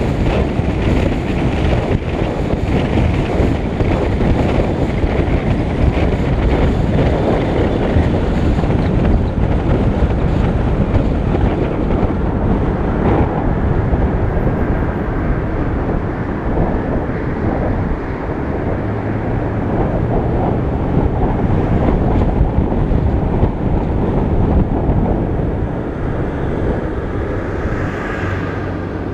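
Wind rushing over the microphone of a camera mounted outside a moving Lincoln Mark VIII, mixed with road and tyre noise and a low engine hum. It eases a little near the end as the car slows.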